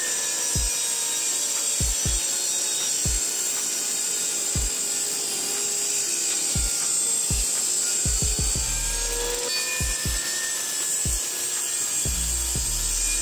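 Benchtop table saw running, with a steady motor whine and hiss as it cuts through a hardwood block. Background music with a low beat plays underneath.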